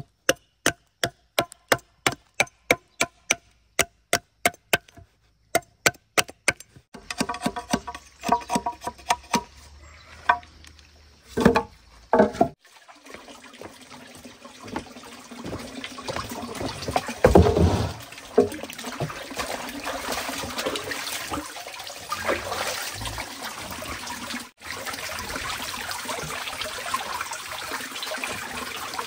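A machete chopping into a bamboo tube resting on a log, sharp strokes about two a second for the first several seconds. After a few louder knocks, water from a pipe tap runs steadily into a plastic basin, with one heavy thump partway through.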